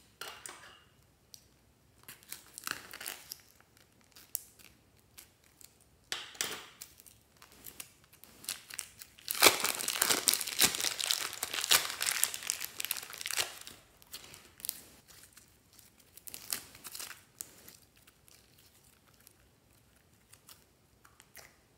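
Plastic piping bags filled with slime crinkling and rustling as they are handled and squeezed, in short bursts with quiet gaps and one long, louder stretch of crinkling in the middle.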